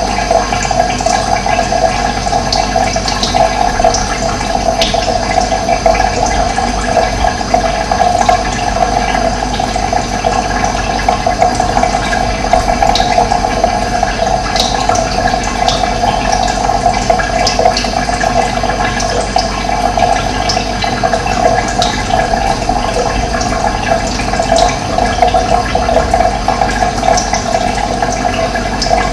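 Running water flowing steadily, a loud, even rushing sound. A few short, high bird chirps come through it now and then.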